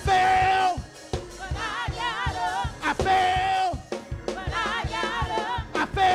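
Live gospel praise-break music: a drum kit keeps a quick steady beat while a voice holds a loud sustained cry about every three seconds, with wavering melodic lines in between.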